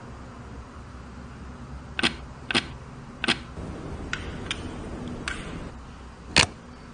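A series of about seven sharp, separate clicks from the keyboard cleaning kit and keyboard being handled, irregularly spaced, the loudest one near the end.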